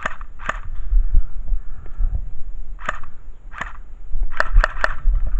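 Airsoft pistol fired in single shots, seven sharp pops in all: two at the start, two more about three seconds in, then three in quick succession near the end. Steady low wind rumble on the microphone underneath.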